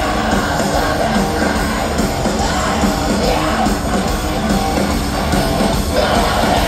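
A live heavy rock band playing loudly through a big PA, with electric guitars, bass and drums and shouted, sung vocals, heard from within the crowd.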